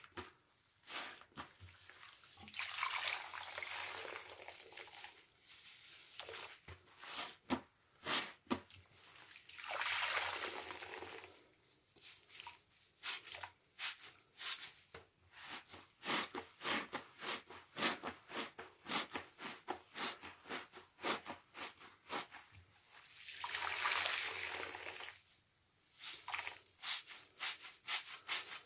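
A sponge soaked in washing-machine liquid being squeezed over and over: rapid wet squelches and crackling suds, with three longer hissing stretches as the liquid is pressed out.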